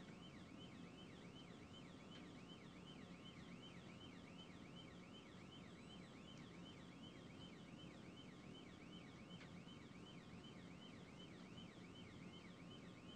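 Police siren on fast yelp, a rising-and-falling wail repeating about three to four times a second, over a low steady rumble of engine and road.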